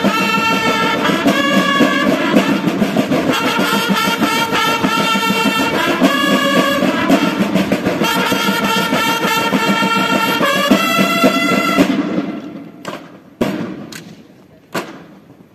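School drum and bugle corps (banda de guerra) playing: bugles sounding sustained chords over steady marching-drum strokes. The music cuts off about twelve seconds in, followed by a few single sharp knocks.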